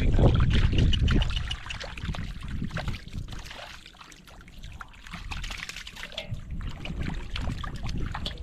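Water splashing and trickling in irregular bursts, with heavy low rumble in the first second or so.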